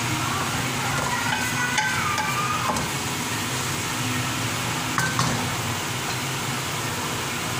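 Keema (minced meat) sizzling as it fries in an aluminium kadai, stirred and scraped with a spatula, with a few sharper knocks of the spatula against the pan about two seconds and five seconds in.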